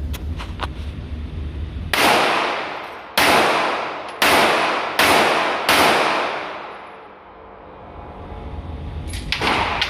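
Five gunshots fired about a second apart, a little quicker toward the last, each leaving a long echoing tail, with a weaker bang near the end.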